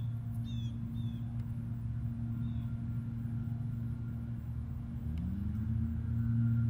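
Steady drone of nearby lawn mower engines, with a second engine tone rising in pitch about five seconds in. A few short, repeated bird chirps in the first second.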